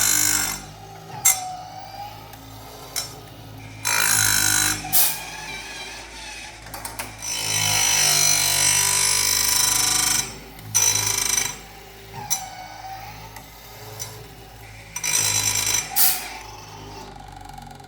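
Automatic chainsaw-chain sharpening machine: its motor runs steadily while the grinding wheel comes down on the cutter teeth in several spells of loud, hissing grinding, one longer spell in the middle.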